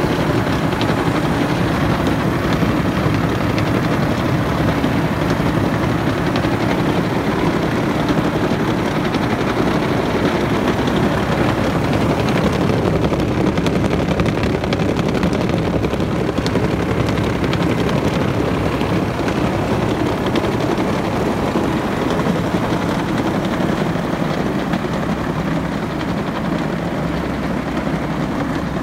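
Tractor diesel engine running steadily at a constant speed.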